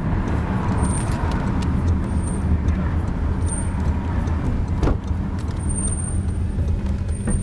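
Car driving, with a steady low rumble of engine and road noise and a few faint, short high chirps.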